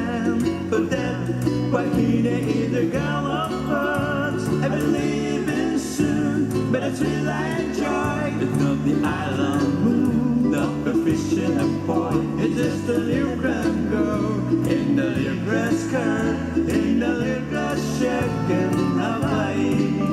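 Hawaiian hula music: a wavering solo vocal melody over strummed guitar-type strings and a stepping bass line.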